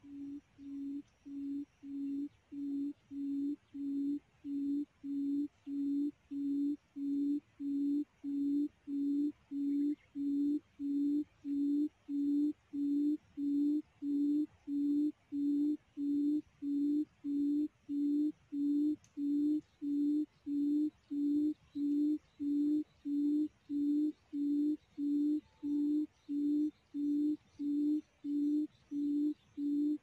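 A quail call lure plays through a small loudspeaker: a low hooting note repeated evenly about one and a half times a second. It grows louder over the first several seconds, then holds steady.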